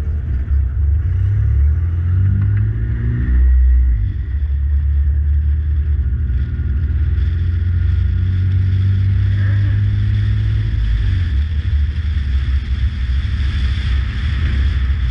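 Turbocharged F23A inline-four of an Acura CL, heard from inside the cabin, pulling up through a gear for the first few seconds and easing off about four seconds in. It then runs on at a steady low rumble at low road speed.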